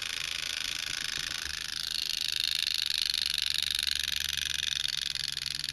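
Mechanical alarm of a vintage German wind-up clock ringing: a fast, continuous, high-pitched rattling buzz that grows louder about two seconds in and stops abruptly at the end.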